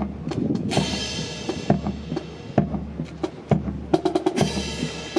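Drum-driven percussion music for a rifle drill display, with two crashes like cymbals, about a second in and near the end, over a run of sharp wooden-sounding clacks.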